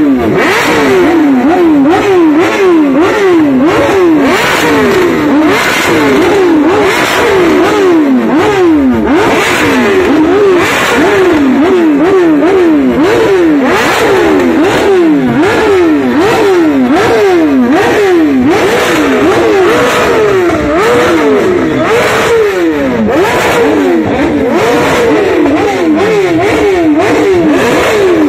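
Motorcycle engine revved over and over in quick blips, its pitch zigzagging up and down about twice a second without a pause.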